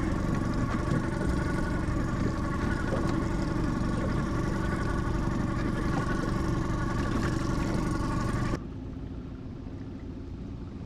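Small boat outboard motor running steadily at trolling speed. About eight and a half seconds in, the sound drops abruptly to a quieter, duller hum.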